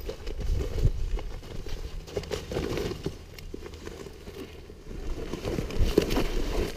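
Scuffling in dry dirt with cardboard armour crumpling and scraping as two people wrestle on the ground, in irregular bursts that are loudest around six seconds in.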